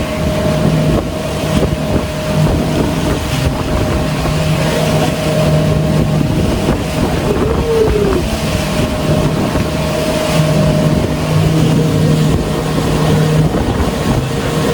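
Tour boat's motor running steadily under way, with water rushing past the hull and wind buffeting the microphone.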